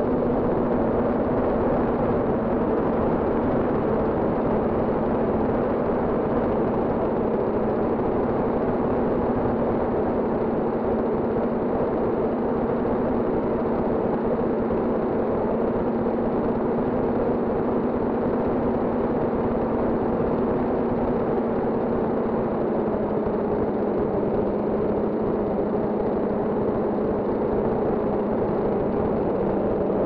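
Multirotor drone's motors and propellers humming steadily, as heard from the drone's own camera, with a slight drop in pitch about two-thirds of the way through.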